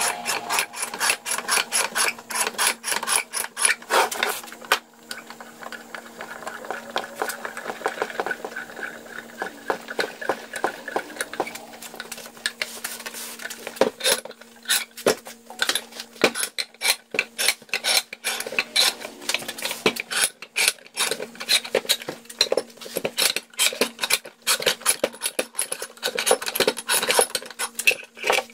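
Old rusty forged bench vise being wound open by its handle: a continuous run of dry metallic clicks, rattles and scraping from the screw and the loose handle.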